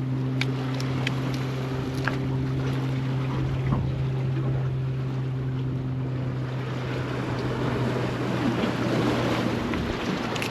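A boat's motor running with a steady low hum that fades out near the end, over wind and surf noise. A few light clicks come in the first couple of seconds.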